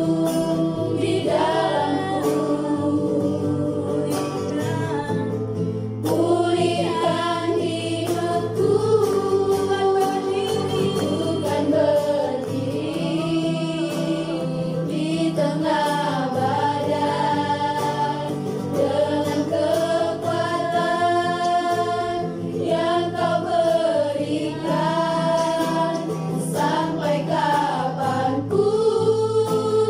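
A small group of women singing a Christian worship song together to a strummed acoustic guitar.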